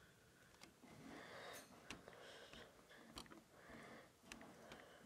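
Near silence: faint breathing close to the microphone and a few soft taps as a fingertip enters a passcode on an iPhone touchscreen.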